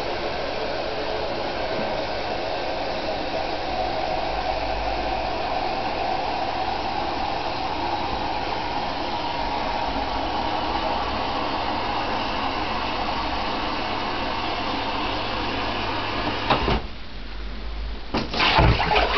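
Handheld shower spraying water into a bath: a steady hiss that cuts off suddenly about three seconds before the end, followed by a few knocks.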